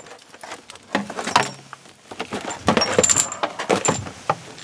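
Garden hoses being hauled out of a storage shed and dropped on the ground: rubber hose rustling and knocking, with small metallic clinks from the brass fittings. The handling is sparse at first and busier from about halfway.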